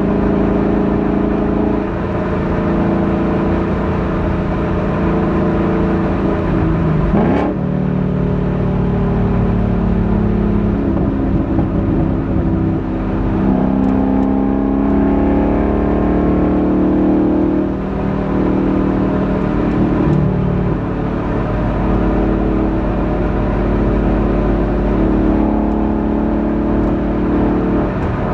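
2021 Ford Mustang GT's 5.0-litre V8 exhaust, heard from inside the car's trunk while driving, the engine note rising and falling with throttle. There is a quick rising rev about seven seconds in.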